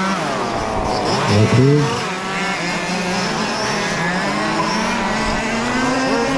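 Large-scale RC Formula 1 race cars' small two-stroke petrol engines, several at once, revving up and down as the cars lap the track. One car passes close about a second and a half in, the loudest moment, its pitch dipping and then climbing again.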